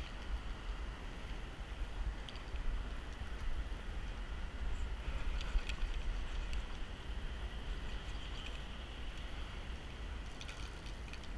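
Wind rumbling on the microphone over a steady hiss, with a few faint ticks.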